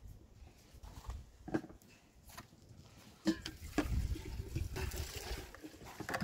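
Thin dry flatbread being torn and dropped into a pot of tomato sauce, then pressed into the sauce by hand: a few soft crackles and taps, then a longer stretch of wet squishing.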